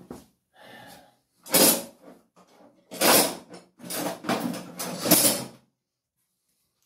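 Someone rummaging and handling objects, a string of short scraping, clattering noises. The loudest come about a second and a half in and again around three seconds in, followed by a longer run of them.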